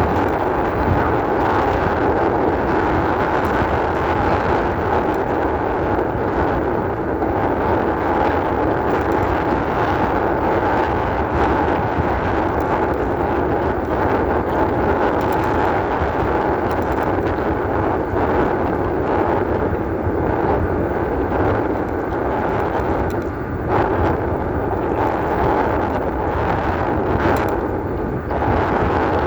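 Steady loud noise of an e-bike riding over a rough off-road trail: wind buffeting the microphone and the bike jolting, with a faint steady tone underneath.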